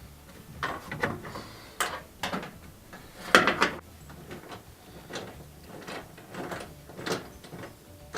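Irregular metallic clicks, knocks and scrapes of a hand tool working the loosened bottom bolt out of a washer shock absorber, loudest a little past three seconds in.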